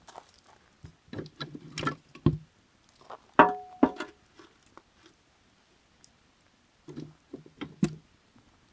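Burning firewood crackling and popping in irregular clusters, with the loudest sharp pop about three and a half seconds in and a quieter run of crackles near the end.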